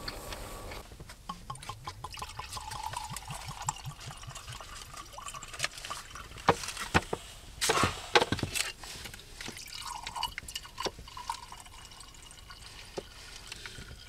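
A drink being poured into a cup, with small clicks and knocks from handling the bottle and cups; the loudest knocks come about eight seconds in.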